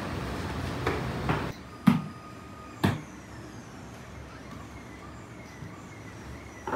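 Sharp knocks on a bakery worktable as dough and tools are handled: two a second apart, then another near the end. Before them a noisy hiss with small clicks cuts off about a second and a half in.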